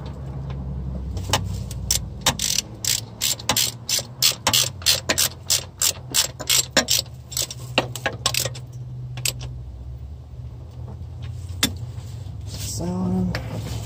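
Hand ratchet clicking in quick back-and-forth strokes, about three clicks a second, as bolts are run down by hand without power tools. The clicking stops about two-thirds of the way through.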